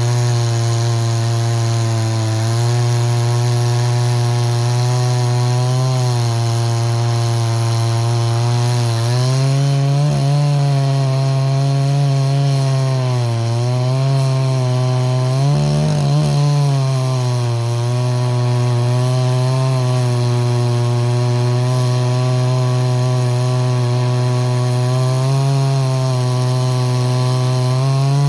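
Two-stroke chainsaw fitted with a freshly modified 36-inch milling chain, running under load as it cuts wood lengthwise. The engine holds a high steady note that sags and recovers several times as the cut loads it.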